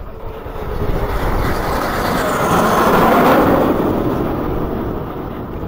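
Formation of Alpha Jet jet trainers flying past overhead: the jet noise swells to a peak about three seconds in and then fades away.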